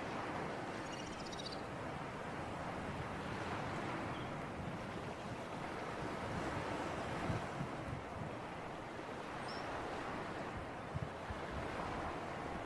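Sea breeze and surf: a steady, gently swelling wash of wind and waves, with a few faint high chirps about a second in and a couple of brief low thumps later on.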